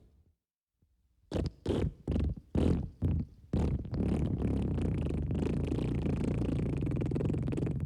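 Wet fart sound effect: after a second of silence, a quick run of about six short fart bursts, then one long unbroken fart that holds steady.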